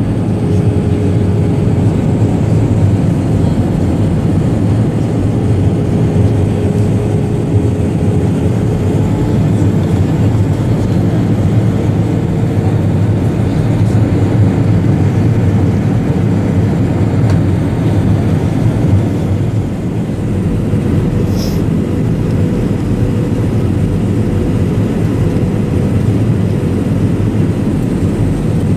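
Steady roar of engine and airflow noise inside the cabin of an Airbus A321 airliner, with a faint engine hum that rises slightly in pitch about halfway through.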